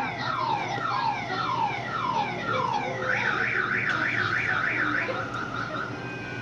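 Car alarm cycling through its tones: falling sweeps repeated about twice a second, then about three seconds in a fast up-and-down warble, then a short run of quick beeps before it stops.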